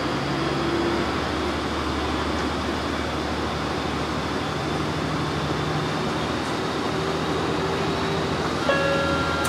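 Cabin noise of a KiHa 40 diesel railcar under way: the diesel engine drones steadily under wheel and rail noise, its note shifting a few times. Near the end a set of steady electronic tones comes on.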